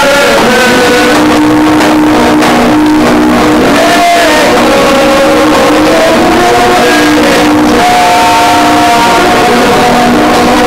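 Men singing loudly together, holding long notes, over the noise of a crowd.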